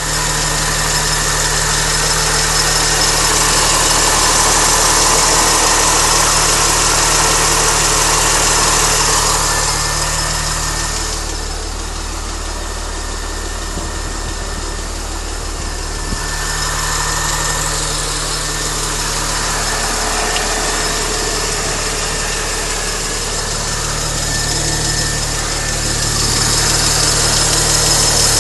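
Mini Cooper S engine idling steadily with a ticking, tappety noise, which the owner places around the timing chain area. It grows fainter for a few seconds about midway, then returns.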